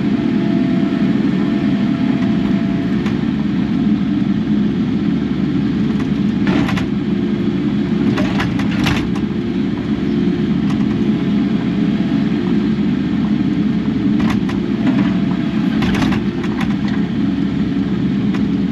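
Kubota KX080 excavator's diesel engine running steadily under work, with a few short clanks or scrapes about six, eight to nine, and fourteen to seventeen seconds in.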